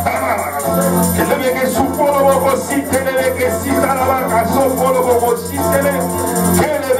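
Praise music with held bass notes, a wavering melody line and a quick, steady rattling beat.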